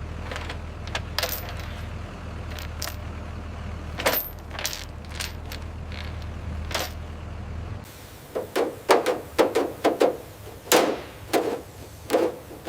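Sharp metallic clinks and knocks, sparse at first over a steady low hum. About eight seconds in, the hum stops and a quick run of louder knocks follows.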